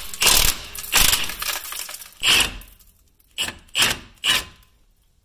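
18 mm socket wrench turning loose the top bolt that holds a front brake caliper, in six short grating strokes of ratcheting and metal rubbing, one of them about twice as long.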